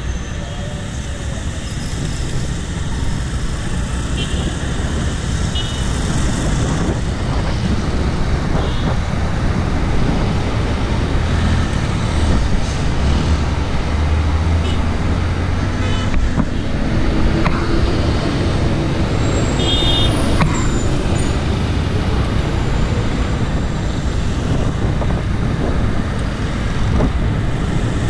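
Road traffic on a busy street: motor vehicles running and passing, over a steady low rumble. One engine's note sweeps up and down about two-thirds of the way in as a vehicle goes by close.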